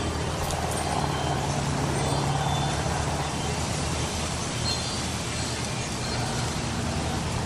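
Steady low hum of distant road traffic.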